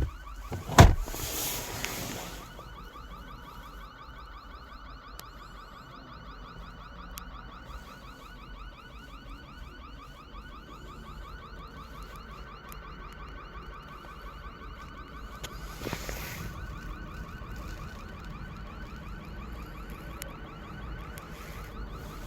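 A fast electronic alarm warble, one short chirp repeated several times a second at a steady rate, starts about two seconds in and keeps going. Before it there are two sharp knocks, the louder one just under a second in.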